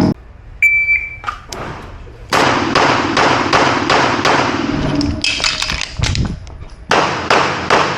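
A shot timer's start beep, then a handgun firing a rapid string of about nine shots at roughly three a second, each shot echoing. After a short pause, another quick string of shots begins near the end.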